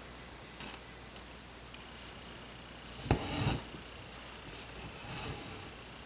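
Embroidery needle and cotton thread pulled through fabric stretched in a hoop. A sharp click about three seconds in runs into a half-second rasp, with a few faint ticks before it and a softer rustle near the end.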